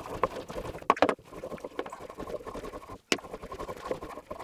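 Parmesan being grated on a flat handheld steel grater over a plastic bowl: repeated scraping strokes, with two sharp knocks, one about a second in and one about three seconds in.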